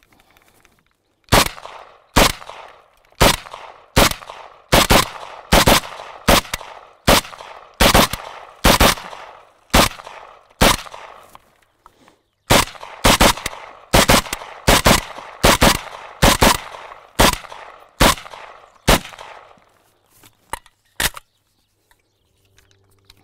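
AKM rifle in 7.62×39 with a standard slant muzzle brake firing about thirty shots in steady semi-automatic fire, roughly one to two shots a second, each report followed by a brief ringing tail. There is a slightly longer pause about halfway through. A few light clicks near the end come as the empty magazine comes out.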